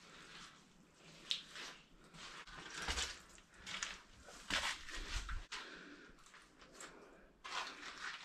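Irregular scuffs and rustles of someone moving over rock and loose stone in a small cave, with a few low bumps of camera handling.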